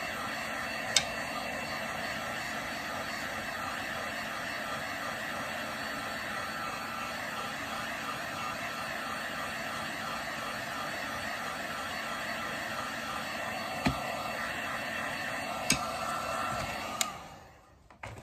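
Electric heat gun blowing steadily while drying paint, with a few sharp clicks. Near the end it is switched off and the noise winds down.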